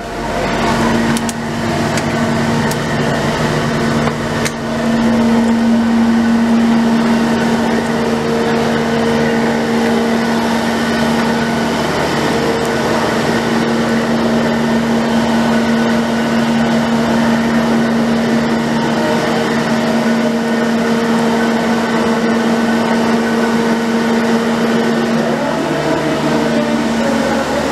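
A stopped train's diesel engine running at idle: a loud, steady hum of fixed pitch. A few clicks and knocks come in the first few seconds.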